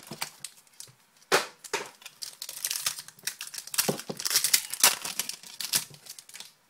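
Trading-card pack being opened and the cards handled: the packaging and cards rustle and crinkle, with a run of sharp clicks and scrapes. The loudest bursts come about a second and a half in and between about four and five seconds.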